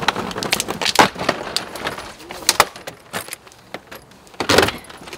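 A red hard-shell suitcase clicking and rattling as it is handled and lifted into a car's trunk, with one loud thump near the end as it is set down.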